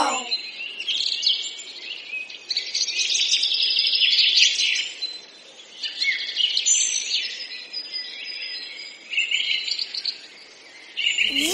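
A busy chorus of many small birds chirping, with short, quick, high chirps overlapping without a break.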